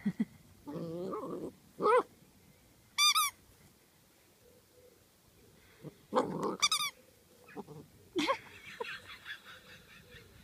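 German Shorthaired Pointer puppy giving short barks and yips, with two high squeaks of a squeaky toy ball about three and six and a half seconds in.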